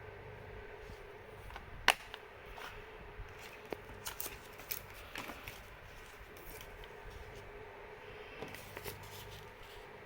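Blu-ray case being handled: one sharp plastic click about two seconds in, then scattered lighter clicks and rustles, over a steady faint hum.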